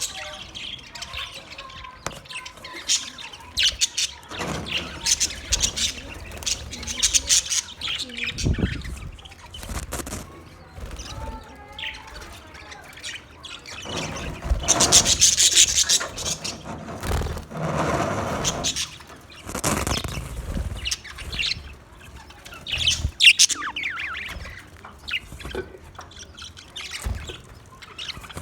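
Pet lovebirds and budgerigars chirping and chattering: a flock of small parrots calling over one another in quick, irregular chirps, with louder bursts of chatter partway through.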